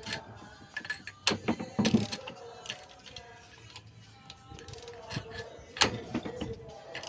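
Socket ratchet wrench clicking, with scattered metal clinks, as tight cylinder-head bolts are worked loose with a pipe slipped over the handle for leverage.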